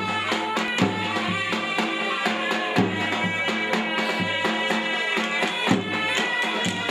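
Davul and zurna playing a Turkish folk dance tune: a shrill reed melody held over repeated heavy drum beats.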